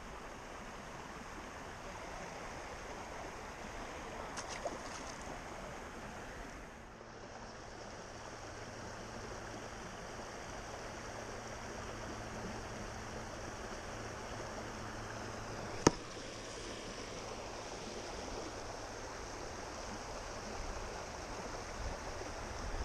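Steady rushing noise of a creek's flowing water. One sharp click sounds about sixteen seconds in.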